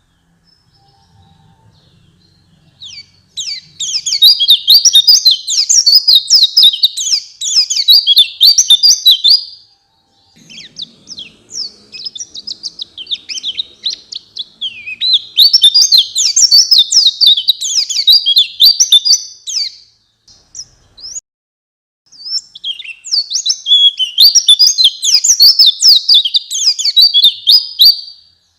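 White-eye (pleci) in full song: long runs of rapid, high twittering, in three bouts with short pauses between, starting about three seconds in.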